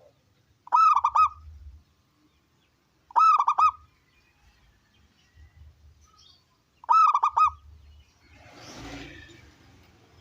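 Zebra dove (perkutut) singing: three loud cooing phrases about three seconds apart, each a quick run of about four notes. A short rustling noise follows the last phrase, near the end.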